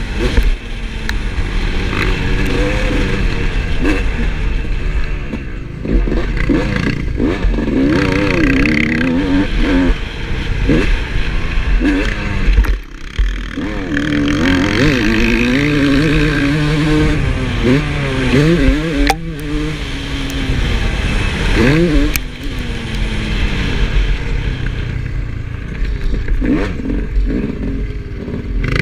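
2007 Yamaha YZ250 two-stroke motocross engine under way, revving up and falling back again and again as the rider works the throttle, with a couple of brief throttle cuts around the middle.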